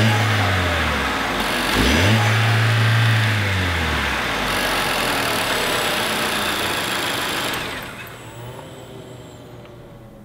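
Chevrolet Cruze's 1.4-litre turbocharged Ecotec four-cylinder engine revving. The engine note rises and falls twice in the first four seconds, holds steady, then fades away about three-quarters of the way through.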